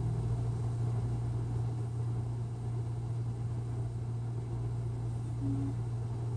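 A steady low hum with a faint hiss over it; no distinct handling sounds stand out.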